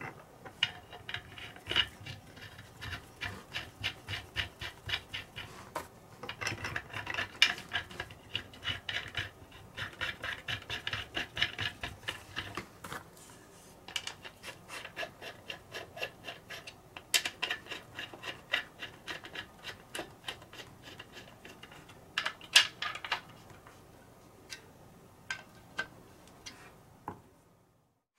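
Hand screwdriver driving countersunk screws through a wooden block into an aluminium frame nut: runs of quick clicks and scraping as the driver is turned in short strokes. There is a brief pause about halfway through, and near the end it dies away to a few odd clicks.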